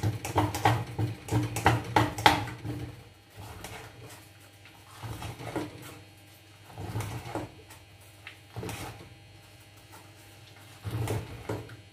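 Metal spoon scraping and knocking against the inside of a stainless steel pot while stirring a thick, sticky rice mixture. Quick strokes in the first few seconds, then slower, scattered scrapes.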